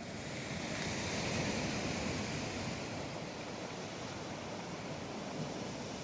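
Sea waves breaking and washing onto the shore: a steady rush that swells about a second in and then eases off.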